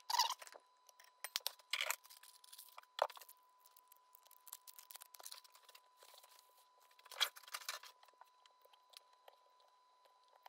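Quiet crinkling and rustling handling noises from a wired sensor and a roll of electrical tape being worked by hand, in a few short bursts at the start, about two and three seconds in, and around seven seconds, over a faint steady high-pitched tone.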